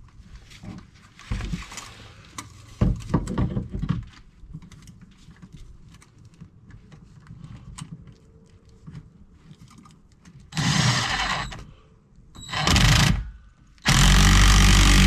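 Cordless drill running a bolt in three short bursts, the last the longest and loudest, after a few light metallic clinks of parts being handled.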